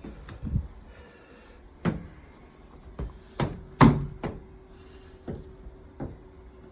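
A series of sharp knocks and clacks of hard objects being handled, about eight in all, the loudest a little before four seconds in.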